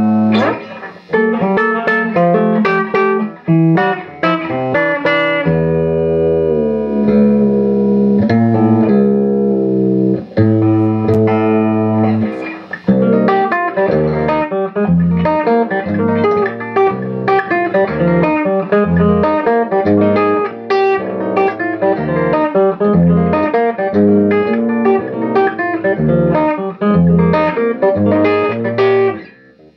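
Electric guitar chords on a korina Gibson Flying V played through a 1964 Marshall JTM45 Bluesbreaker combo, whose punctured Celestion G12 speaker has been patched with hot glue. Long ringing chords for about the first twelve seconds give way to a steady, rhythmic strummed chord progression, with a brief drop in sound near the end.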